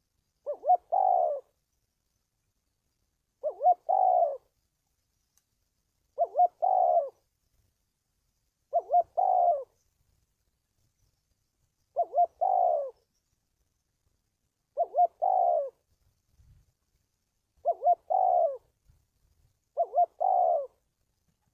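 Spotted dove cooing: a phrase of two short notes and a longer coo, repeated eight times about every two and a half to three seconds.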